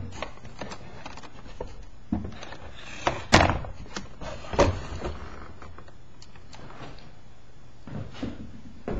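Handling noise close to the microphone: papers rustling and a few short wooden knocks and clunks. The loudest comes about three and a half seconds in, and another about a second later.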